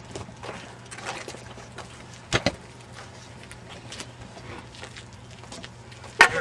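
Scattered knocks and taps over a steady low hum, with a sharp double knock about two and a half seconds in and a loud knock near the end.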